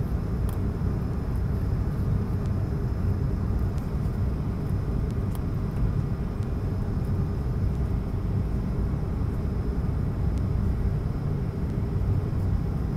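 Steady low rumble of engine and airflow noise inside the cabin of an Airbus A220-300 on final approach, its Pratt & Whitney PW1500G geared turbofans running, with a faint steady high whine above it.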